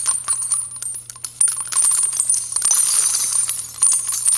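Title-card sound effect: a rapid, continuous run of small metallic clinks and jingles.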